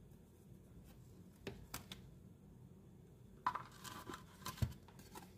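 Pokémon trading cards being handled: a few light taps about a second and a half in, then cards sliding and scraping against each other and the card box for about a second, with a soft thump.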